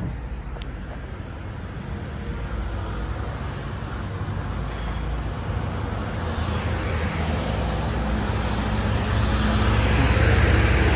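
A motor vehicle's engine running with road noise, growing steadily louder as it approaches and loudest near the end.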